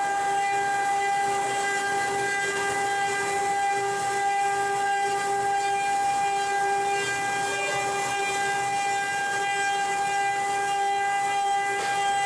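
CNC wood-carving router with its spindle running at a steady speed: a constant high whine with a hiss underneath.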